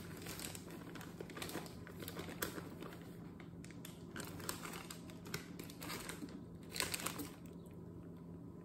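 Plastic bag of powdered sugar crinkling and rustling as it is handled and tipped to pour sugar into a measuring cup, with light clicks and knocks. A cluster of louder crinkles comes about seven seconds in.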